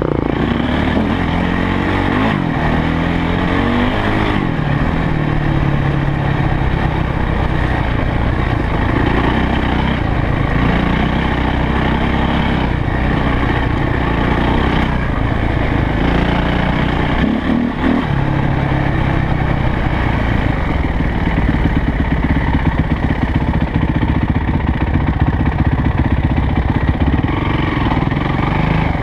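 Yamaha YZ450F's single-cylinder four-stroke engine running as the dirt bike is ridden along a trail, its revs rising and falling again and again with the throttle and gear changes.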